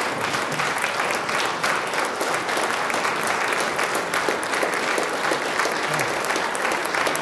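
A roomful of people applauding steadily, the clapping holding at an even level throughout.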